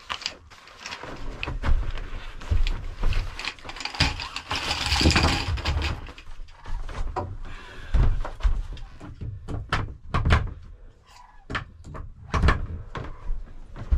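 Helinox lightweight cot being put together: the frame's legs and crossbars clicking and knocking into place, with scattered thumps and a long fabric rustle about four to six seconds in.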